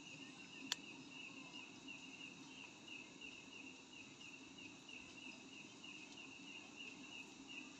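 A cricket chirping steadily, about three high chirps a second, over a faint low background hum, with a single sharp click about a second in.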